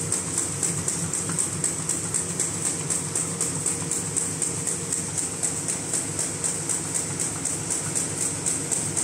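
Paper bag making machine running, clattering at a fast, even rhythm of several beats a second as it cycles.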